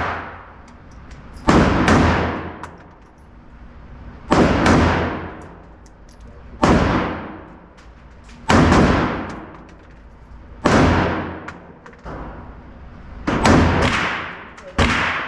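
Smith & Wesson M&P Sport 3 AR-15 rifle firing slow single shots, seven of them about two seconds apart, each sharp crack ringing out for about a second.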